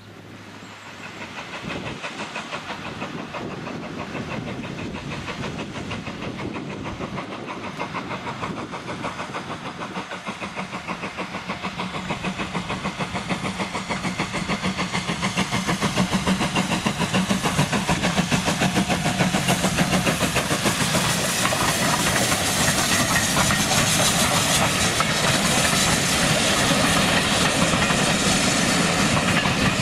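Steam locomotive working a train: a fast, regular pulsing beat with hiss, growing louder over the first half of the passage as it approaches, then holding steady.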